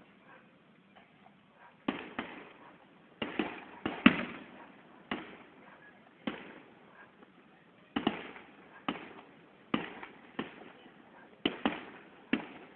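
Distant fireworks display: aerial shells bursting in sharp bangs at irregular intervals, each followed by a short fading echo. There are about fifteen bangs, the loudest around four seconds in.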